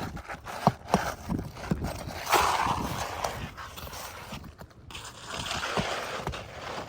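A series of sharp taps and knocks, then scraping and rustling, as nails are worked out from under a 3-tab asphalt shingle with hand tools.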